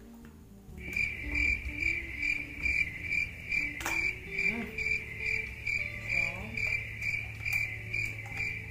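A cricket chirping steadily, a high tone pulsing about two to three times a second over a low hum, with a single sharp click about four seconds in.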